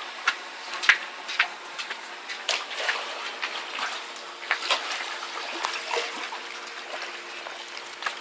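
Water splashing and trickling, with many irregular sharp splashes, the loudest about a second in.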